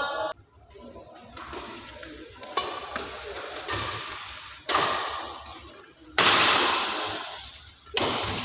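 Badminton rally: racket strings smacking the shuttlecock four times, a sharp hit every one and a half to two seconds, each ringing on in the hall's echo; the loudest hit comes about six seconds in.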